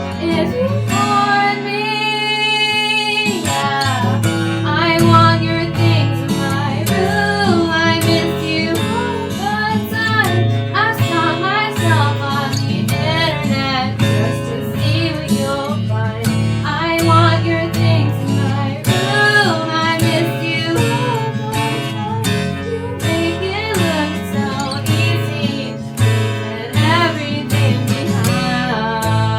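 A woman singing a song cover over acoustic guitar, holding one long note about two seconds in.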